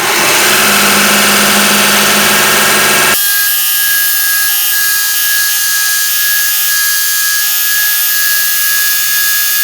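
Bucktool 1x30 bench belt sander's 1/3 HP direct-drive motor running a coarse conditioning belt. About three seconds in the sound changes sharply to a steady high whine over hiss as work is held against the belt.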